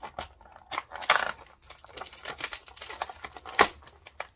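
The cardboard door of a papercraft advent calendar being pried and torn open by hand, and the item inside pulled out. It is an irregular run of crackling, rustling and small clicks, with the heaviest crinkling about a second in and a sharp snap a little past three and a half seconds.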